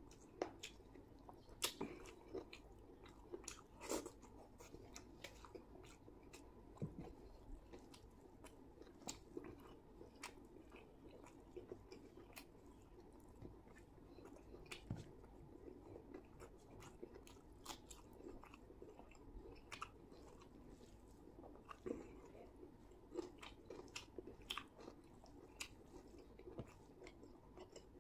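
Close-up mouth sounds of a person chewing chicken biryani: soft, irregular wet smacks and small clicks, several a second at times.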